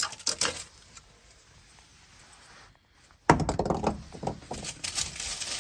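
Knocks and clatter from parts being handled and cleaned: a few sharp knocks, a quiet stretch, then a sudden burst of irregular clattering and rustling about three seconds in that keeps on.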